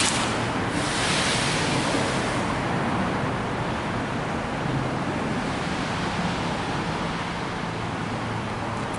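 Steady hiss of rain and tyres on wet road, brightest for the first couple of seconds and then easing off.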